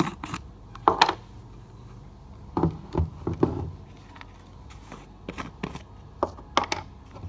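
Plastic supplement tubs and a shaker bottle being handled: screw lids twisted and clicked, containers knocked and set down, in a series of short clicks, knocks and scrapes, loudest about a second in.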